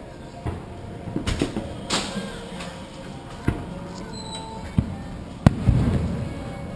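Fireworks bursting overhead: a string of separate sharp bangs and cracks, the loudest about five and a half seconds in, followed by a low rolling rumble.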